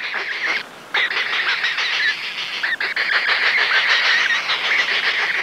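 White-faced heron chicks giving begging calls during a feeding: several nestlings calling over one another in a dense, continuous chorus of high chattering calls. The calls break off briefly about half a second in.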